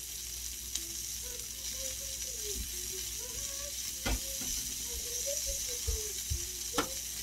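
Asparagus and green onions sizzling steadily on an electric tabletop grill plate, with a couple of light knocks, about four and seven seconds in, and a faint wavering tone in the background.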